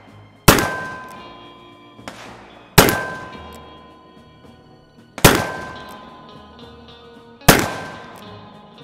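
Four shots from a Pietta 1860 .44 caliber black-powder percussion revolver, about two and a half seconds apart, each with a faint click shortly before it. After each shot a steel target rings for about a second.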